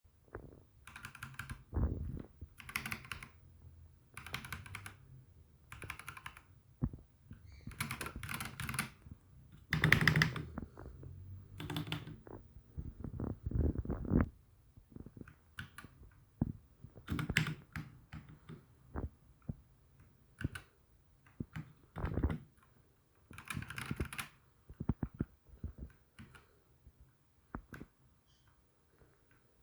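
Akko 3068B Plus mechanical keyboard with Jelly Pink linear switches being typed on, keystrokes clacking in irregular bursts with short pauses between them.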